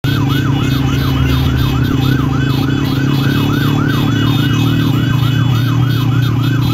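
An emergency vehicle siren in a rapid yelp, about four to five pitch sweeps a second, over a steady low engine hum.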